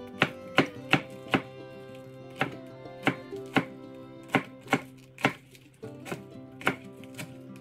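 Chef's knife slicing green onions on a cutting board, each cut a sharp knock on the board, about two a second with a brief pause between about one and a half and two and a half seconds in. Soft background music runs underneath.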